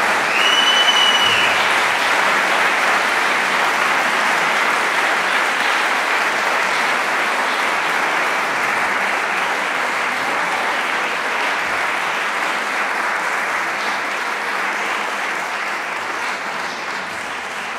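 Audience applauding steadily in a concert hall after a song for voice and piano, slowly easing toward the end. One brief high whistle rises out of the clapping near the start.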